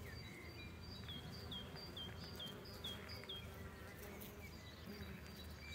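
Bees and other insects buzzing steadily around a flowering shrub, with a bird singing a quick run of short, repeated high notes from about a second in.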